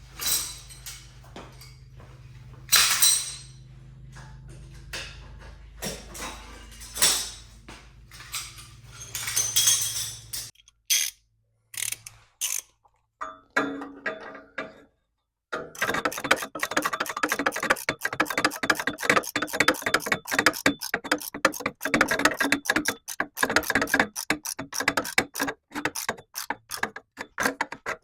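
Metal clanks and knocks over a low steady hum that stops about ten seconds in. From a little past halfway, a hand ratchet clicks rapidly and steadily as a bolt on the Jeep's upper control arm is run in.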